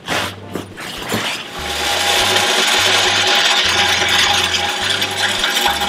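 Pit Boss Competition Blend hardwood pellets poured from a plastic bucket into a pellet grill's hopper: a steady rush of pellets starting about a second and a half in. Before it, brief rustles of a fabric grill cover being pulled off.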